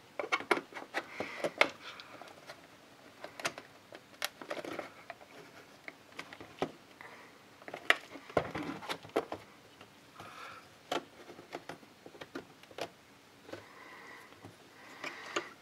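Plastic housing of an emergency LED light being pried apart with a flat-blade screwdriver: irregular clicks, taps and scrapes of the screwdriver blade on the plastic, with sharper cracks as the lens's retaining tabs snap, the loudest about eight seconds in.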